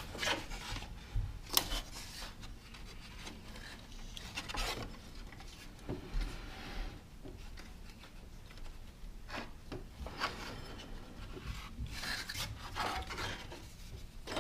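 Irregular rubbing and scraping of a rubber serpentine belt being handled and worked around the engine's pulleys.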